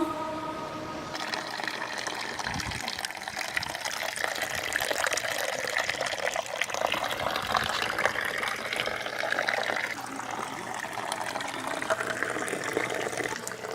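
Running water splashing and rushing steadily.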